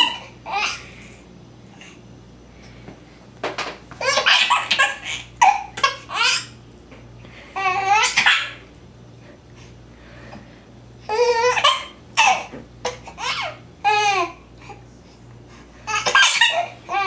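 A baby laughing in high-pitched bouts, about six of them, with short pauses in between.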